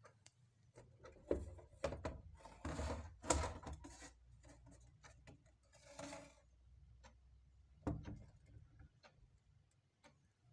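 A wall clock being handled and turned over: a series of irregular bumps, knocks and rubbing sounds as it is moved about, the loudest cluster a second or two in.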